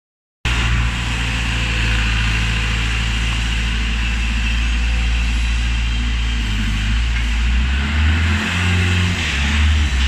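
Skid steer loader engine running steadily as the machine drives. Its note shifts about six and a half seconds in and changes in steps over the last few seconds, while the loader arms are raised under hydraulic load.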